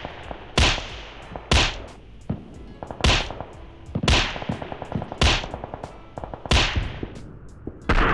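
A sharp, whip-like crack sound effect, repeated about seven times at roughly one-second, uneven intervals, each with a short hissing tail, over faint rapid ticking. It is a phone's test sound played back through Meizu Pop Pro wireless earbuds during a latency test.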